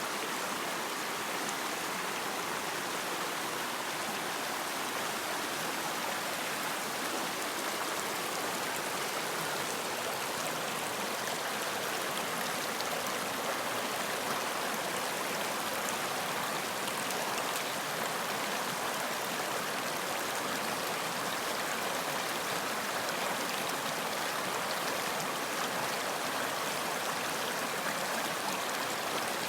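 Running water of a stream, a steady, even rushing and splashing.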